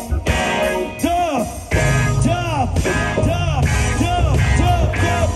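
Live reggae band playing, with electric guitars and keyboard. After a sparser passage, the full band comes back in louder with heavy bass about two seconds in.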